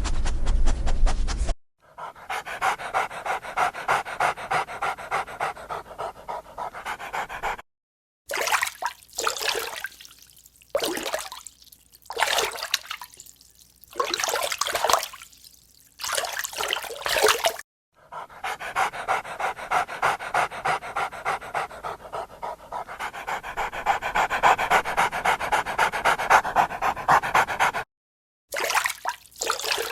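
Dog panting rapidly and evenly, about three pants a second, in separate clips cut abruptly together; in the middle stretch the breaths come irregularly instead.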